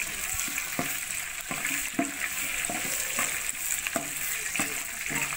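A metal ladle stirring in a metal cooking pot over a wood fire, scraping and knocking against the pot about eight times at a little under a second apart, over a steady hiss.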